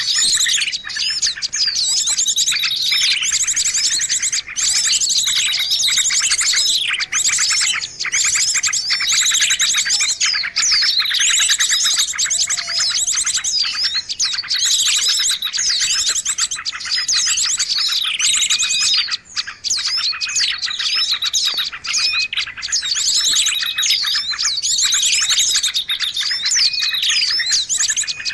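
Dense, noisy chorus of many small birds chirping and trilling over one another without pause, a bird-lure (pikat) call recording used to draw small birds in.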